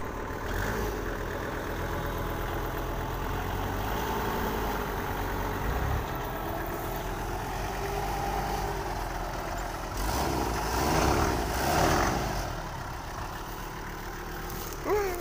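Kubota GL-53 tractor's diesel engine running steadily as the tractor drives across the field, getting louder for a couple of seconds about ten seconds in.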